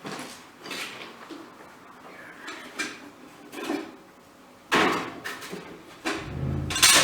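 Short knocks and clanks of metal tools and parts being handled and set down, with a louder clatter about five seconds in.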